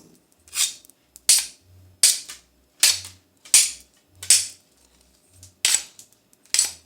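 A homemade foley effect: eight sharp, hissy hits in a steady series, a little faster than one a second, each dying away quickly.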